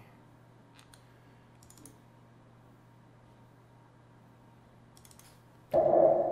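A few faint computer mouse clicks, then about six seconds in a loud synthesizer lead note plays through a convolution reverb and starts to fade.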